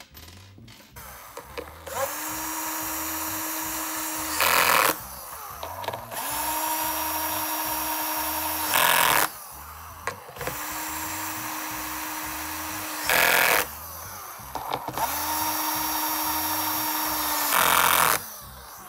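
Power drill-driver driving four screws in turn as the speaker cabinet is reassembled. Each run is a steady motor whine of about two and a half seconds that ends in a short, louder burst as the screw seats.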